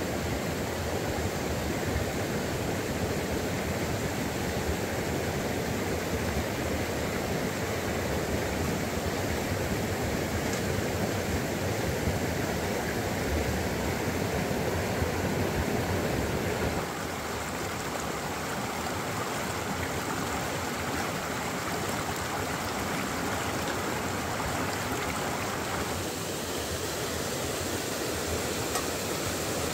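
Fast river water running over rocks and small rapids: a steady rush. The rush shifts in tone and drops slightly in level about halfway through, and again near the end.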